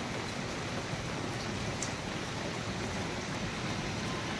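Heavy rain falling, a steady even hiss with a few faint drop ticks.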